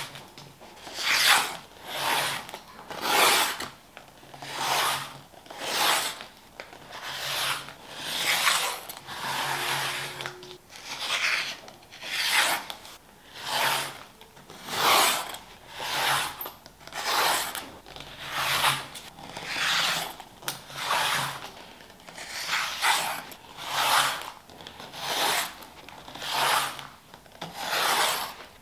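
Rotary cutter blade rolling through fabric on a cutting mat along an acrylic ruler, one rasping stroke after another at about one a second.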